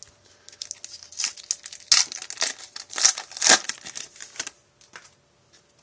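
Foil wrapper of a 2007 Fleer Ultra baseball card pack being torn open and crinkled by hand: a dense run of crackles lasting about four seconds, loudest in the middle, that stops near the end.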